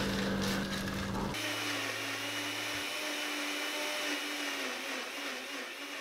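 Philips countertop blender running steadily, whirring as it purées leafy greens into juice. It comes in abruptly about a second in, after a moment of background music.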